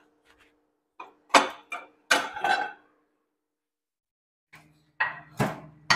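A glass baking dish knocked and scraped as it is slid out of a microwave and set down on a stone counter, then the microwave door is pushed shut with a sharp click near the end.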